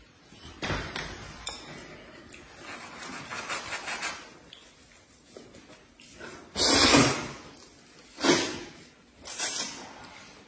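A man slurping wide flat noodles in loud mouthfuls, three slurps in the second half, the first the loudest. Before them, a low thump about a second in and a light clatter of chopsticks and dishes.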